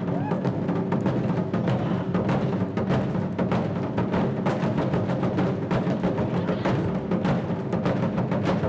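Japanese taiko drums played by an ensemble in a steady, dense rhythm, with many strokes a second.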